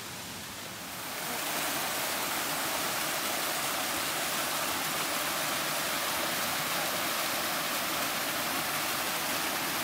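Cascading stream water rushing steadily; it grows louder about a second in.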